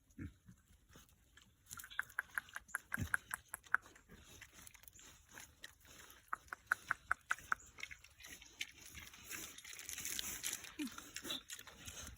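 Pigs eating hot dogs: two quick runs of chomping, smacking clicks, several a second, with rustling and scuffling near the end.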